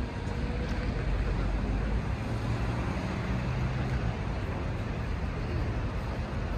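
Steady outdoor city ambience: a low rumble of traffic with no single event standing out.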